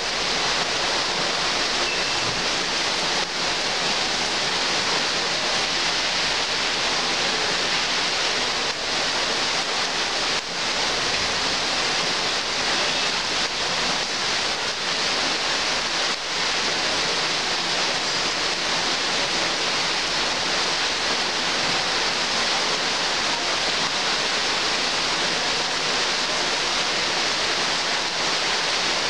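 Heavy rain pouring steadily onto tree foliage: a dense, even hiss that holds at one level throughout.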